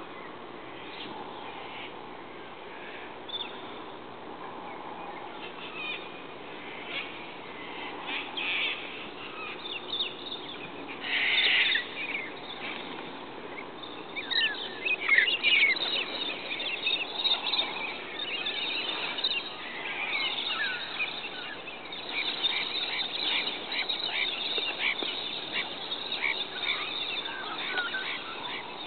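A flock of galahs calling, sparse at first, then a rush of wingbeats as the flock takes off together, followed by many overlapping harsh calls as the birds fly.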